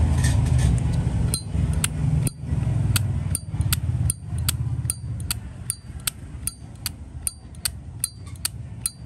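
Zippo lighter's hinged metal lid flicked open and snapped shut again and again: sharp metallic clacks with a brief ring, often in pairs, about two or three a second, starting a little over a second in. A low rumble runs underneath.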